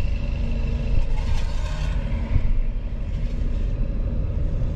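Low steady rumble of a van's engine and tyres while driving slowly.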